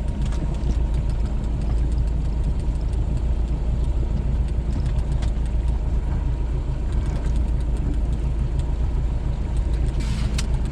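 Boat motor running steadily at trolling speed, a constant low hum.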